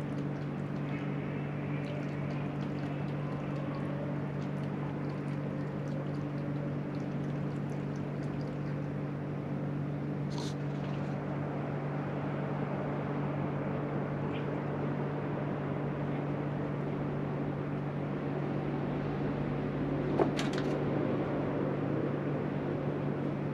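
Steady low machine hum over a background hiss, with faint ticking in the first half and one sharp knock about twenty seconds in.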